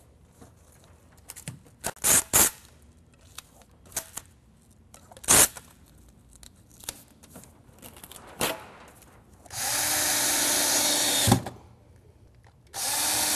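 A power drill runs twice, each time for about two seconds at a steady speed: first about ten seconds in, then again near the end. Before that come scattered short clicks and rustles from handling material.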